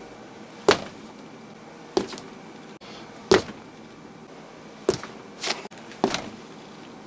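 A fist pounding a squishy, putty-filled Adipose stress toy down onto a tabletop: six sharp thuds, irregularly spaced a second or so apart.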